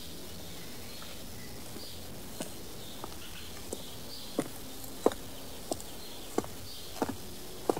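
Footsteps at an even walking pace, about three every two seconds, starting a couple of seconds in and growing louder, over a steady outdoor background with faint high chirping.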